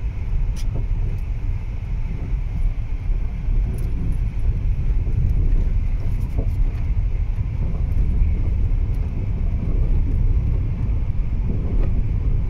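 Car driving along an unpaved dirt road, heard from inside the cabin: a steady low rumble of tyres on the rough surface and the engine, with a few faint ticks.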